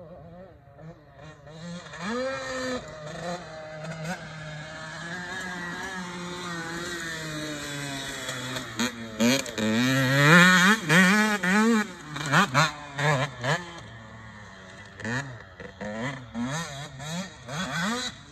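Motocross dirt bike engine revving as it is ridden round the track, its pitch rising and falling with the throttle. It is loudest about ten seconds in, with quick up-and-down rev swings, then grows fainter with short bursts of throttle as the bike moves away.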